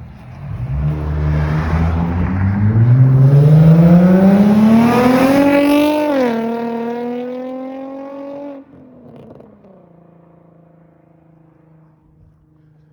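A car accelerating hard past on a flyby, its engine revving up, shifting up a gear about six seconds in, then fading off quickly, leaving a faint steady hum.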